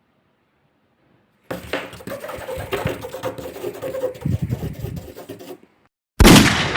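A burst of rattling, clattering knocks lasting about four seconds, then, after a short silence, one sudden loud bang near the end that dies away slowly.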